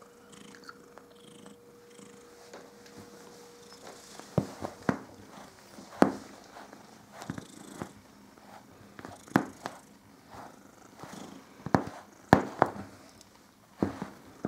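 Domestic cat purring while its fur is brushed with a grooming brush. Sharp knocks and clicks break in from about four seconds on, the loudest about six and twelve seconds in.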